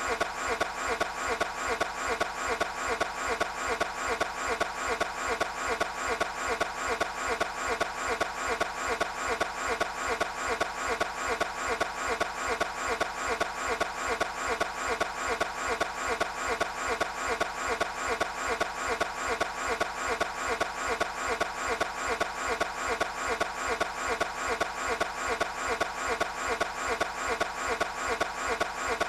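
Starter cranking the Toyota GT86's engine over and over without it catching: an even, unbroken chug of about three or four pulses a second, the sign of an engine that will not start.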